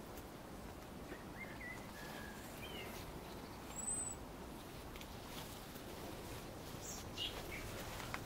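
Scattered small-bird calls: a few short chirps, then a thin high whistle about four seconds in, and a couple more brief chirps near the end, over faint steady background noise.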